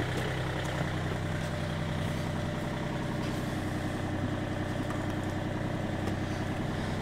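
Yanmar marine diesel engine idling steadily, freshly serviced with new hoses, a cleaned heat exchanger and new mixing elbows.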